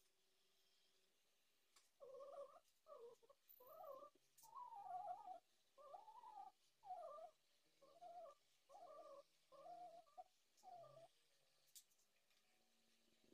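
Faint run of about ten short animal calls, each rising and falling in pitch, starting a couple of seconds in and ending a couple of seconds before the end.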